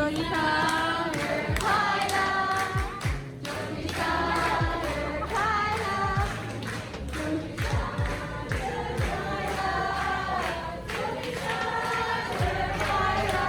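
Music with several voices singing together, over a light beat.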